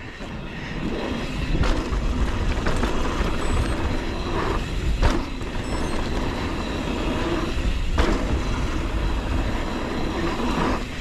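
Polygon Siskiu T7 mountain bike ridden fast down a dirt trail: wind rumbling on the microphone, tyres on dirt and the bike rattling, louder from about a second in. Three sharp knocks from the bike, spaced about three seconds apart.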